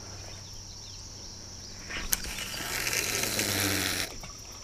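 Fishing line running off a spinning reel during a cast: a sharp click about two seconds in, then about two seconds of hiss that cuts off suddenly. A steady high insect trill sounds underneath.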